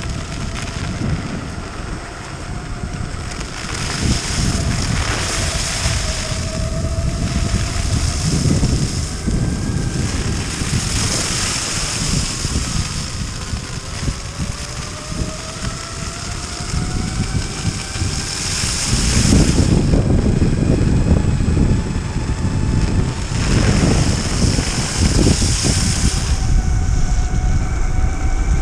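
Electric mountainboard's belt-driven brushless motors whining, the pitch gliding slowly upward as the board gathers speed. Under it are the rumble of the wheels over packed snow and ice and wind buffeting the microphone, louder in stretches after the middle.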